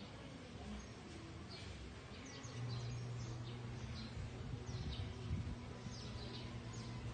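Birds chirping: short, high, falling chirps, one or two a second, starting about a second and a half in, over a faint steady low hum.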